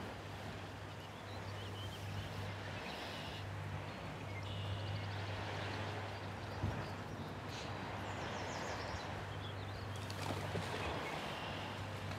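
Outdoor ambience: birds chirping now and then over a steady background hiss and a low hum.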